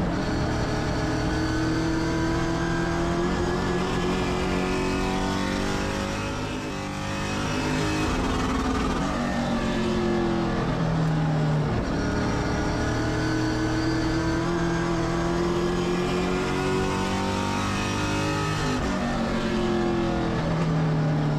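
Race car engine running hard under racing load. Its pitch climbs steadily, then drops away sharply, three times over.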